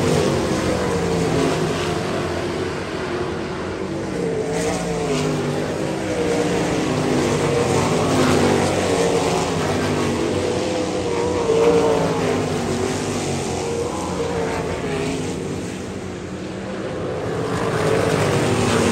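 Several winged sprint cars' V8 engines racing on a dirt oval, pitch rising and falling as they lift and accelerate through the turns. The sound dips briefly near the end as the pack moves away, then swells again as cars come past close by.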